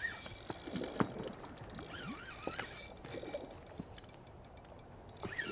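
Spinning reel being cranked against a hooked fish, with rapid mechanical clicking and ticking from the reel. A few brief wavering high-pitched sounds come in about two seconds in and again near the end.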